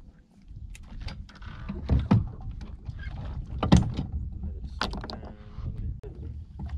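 Knocks and clunks of fishing rods and gear being handled on a boat's deck, the loudest about halfway through, over a low rumble of wind and water. A short creak near the end.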